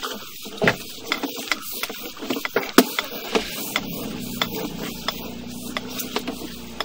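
Sewer inspection camera on its push cable being fed down the sewer line: irregular clicks, knocks and scraping over a steady hiss.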